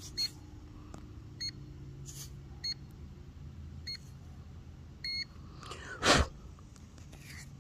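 Short high electronic beeps from metal-detecting gear, repeating about every 1.2 seconds, five times. A louder handling swish comes about six seconds in.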